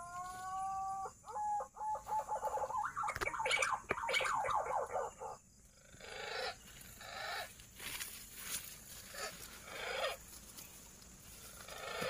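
Green pigeon (punai) call used to lure the flock: a rising whistled note, then a run of rapid warbling notes that grows louder. After that come shorter, fainter separate notes about once a second.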